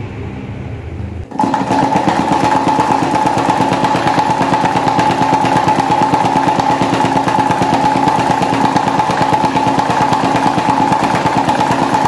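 Broken electric desk fan with a two-blade plastic propeller running fast, a loud rapid rattle with a steady whine over it. A quieter fan hum cuts over to it abruptly a little over a second in.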